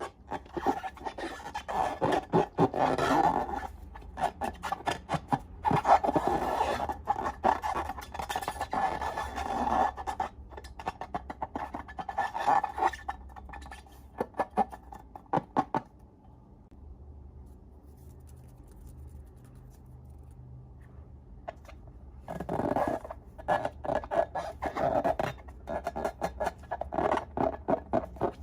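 Slime being worked by hand with dense, wet crackling and clicking in bouts. It pauses for about six seconds past the middle, then starts again.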